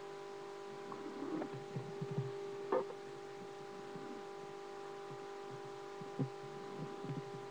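Soft snoring in irregular low rumbles, with two short louder sounds about three and six seconds in, over a steady electrical hum.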